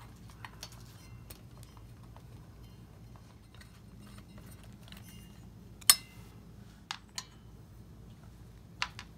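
Faint scattered clicks and ticks from a Phillips screwdriver backing screws out of a ceiling fan's light kit, with the kit's metal and glass parts clinking. A sharper clink comes about six seconds in, and a few lighter ones follow.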